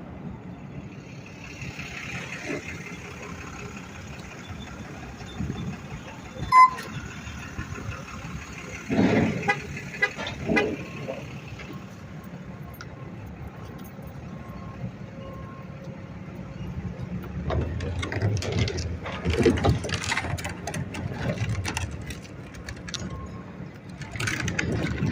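Street traffic: vehicles running and passing, with a short horn toot about six and a half seconds in and several louder passes later on.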